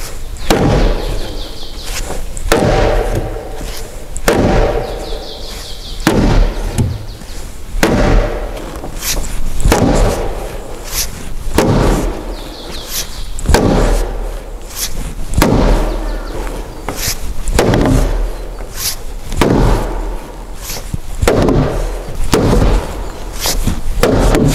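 A large wooden mallet striking timber beams of a hanok frame: about a dozen heavy blows, one every two seconds or so, each ringing briefly in the wood.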